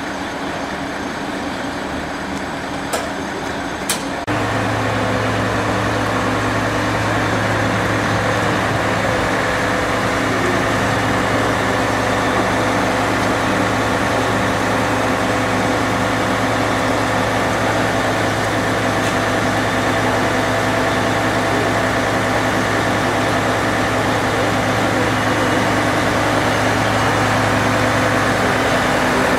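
Diesel engine of a Mercedes-Benz fire aerial ladder truck running steadily with a low hum. Two sharp clicks come about three and four seconds in, and just after them the engine sound steps up louder.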